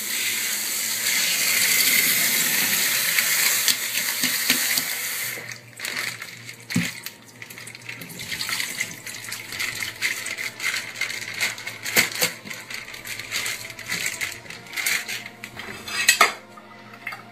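Kitchen tap running a steady stream onto a plastic-bagged package of pork chops in a stainless steel sink, shut off about five seconds in. Then a scattered run of clicks, knocks and rustles as the wet plastic packaging is opened and handled in the sink.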